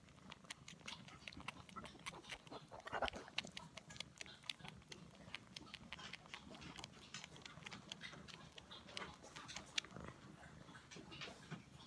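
Kitten sucking on its own paw: a steady run of quick, irregular sucking and smacking clicks, several a second.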